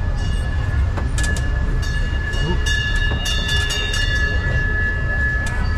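Tourist road train running over the streets, with a steady low rumble and a high, steady squealing whine held through most of it.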